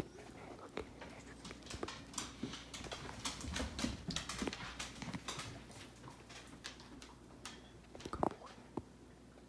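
Dogs' claws clicking and scrabbling on a hardwood floor in many short, irregular taps as a flat-coated retriever puppy and an older dog move about.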